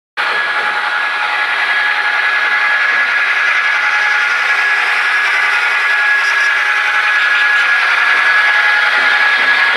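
Model diesel locomotives running close past on the layout track: a steady whine of their electric motors and gearing mixed with the rolling clatter of wheels on rail, slowly getting louder as the units near.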